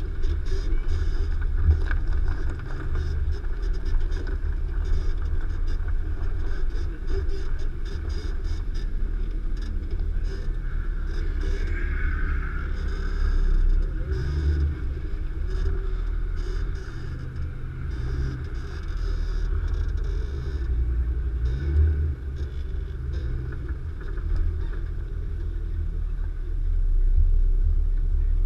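A Nissan Xterra Pro-4X's 4.0 L V6 engine running under load at low speed off-road. It rises in pitch briefly twice, about halfway through and again a few seconds later, with frequent small knocks and rattles throughout.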